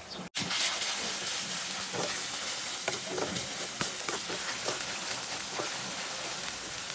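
Onion, tomato and ground spices sizzling in hot oil in a metal kadai, stirred with a wooden spatula that scrapes and clicks against the pan. The sound drops out for an instant just after the start.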